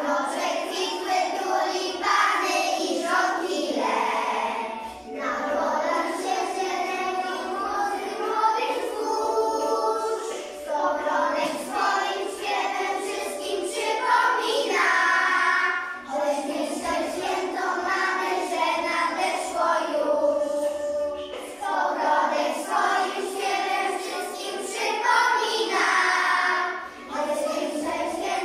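A group of young children singing a song together in chorus, in phrases with short breaths between them.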